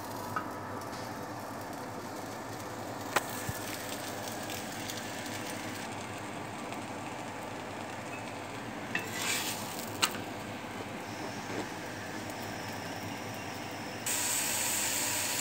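Paratha frying on a hot flat griddle: a steady soft sizzle, with a couple of sharp clicks and taps, and the sizzle growing louder and brighter about a second before the end.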